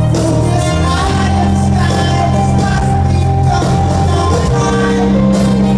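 A live band playing a slow passage: steady held bass notes under sustained chords, with a large hall's reverberation.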